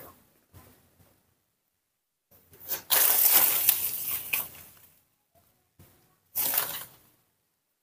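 Rustling and crackling noise in bursts. The loudest lasts about two seconds, starting about three seconds in, and a shorter one comes near the end.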